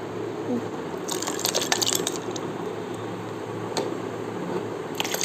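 Liquid being poured into a plastic blender jar holding ice cubes, with a run of sharp clicks and clinks about a second in and a few single clicks later.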